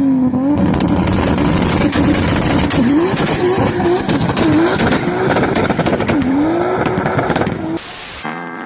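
A mini bike's small gas engine running and being revved, its pitch dipping and climbing back several times as the throttle is eased off and opened again.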